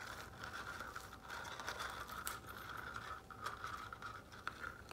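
McDonald's French fries sliding and scraping in a cardboard fry carton as it is tipped up and shaken into the mouth: many small irregular clicks, scratches and rustles of paper and fries.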